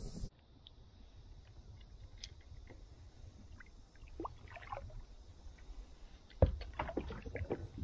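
Small clicks and taps from handling fishing gear on a kayak over a low, even background, with a sharp knock about six and a half seconds in and a quick run of clicks after it.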